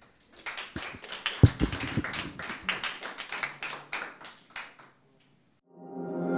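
A small audience applauding, a few dozen hands clapping unevenly and thinning out about five seconds in. Music fades in near the end.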